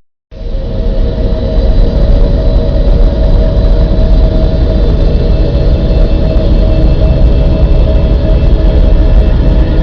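A loud, steady, low rumbling drone with a few faint steady tones running through it, played as the recorded hum of the Earth. It drops out for a moment right at the start and comes straight back.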